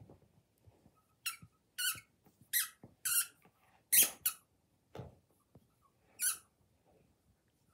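Squeaky dog toy squeezed in about seven short, sharp squeaks in quick succession as a dog chews it, with soft rustling and bumps of a blanket between them.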